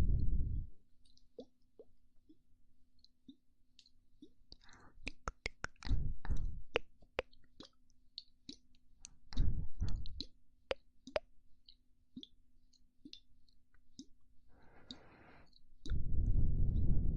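Close-miked ASMR mouth sounds: many wet lip and tongue clicks and pops. Low breathy rushes of air blowing onto the microphone come at the start, around six and ten seconds in, and near the end.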